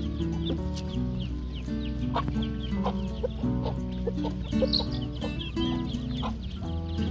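Chickens clucking in short, scattered calls over background music with long held notes.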